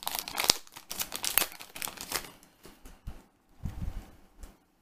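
Foil Yu-Gi-Oh! booster pack torn open and crinkled by hand: a dense run of crackles for about two seconds, then quieter rustling and a few soft knocks as the cards are pulled out and handled.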